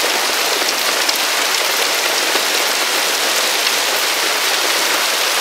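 Hailstorm: hailstones pelting down steadily, a dense, even hiss made of countless small impacts.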